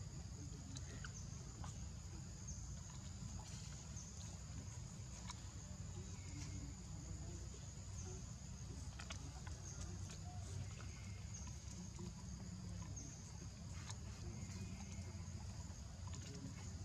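Outdoor forest ambience: a steady, high insect chorus in two unbroken pitches over a low rumble, with scattered faint clicks.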